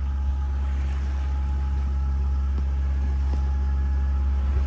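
Sailboat's inboard diesel engine running steadily at cruising revs while motor-sailing: an even, constant low hum.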